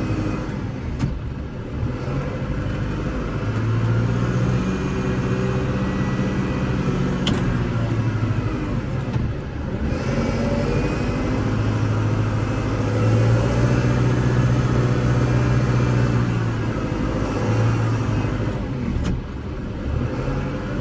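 Kubota L6060 tractor's four-cylinder diesel engine running under load while plowing snow, its pitch rising and falling with the throttle.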